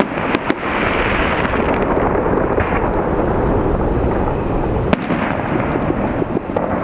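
Aerial fireworks display: firework shells bursting in a continuous rumbling, crackling barrage. A few sharp reports come in quick succession near the start, and another sharp report comes about five seconds in.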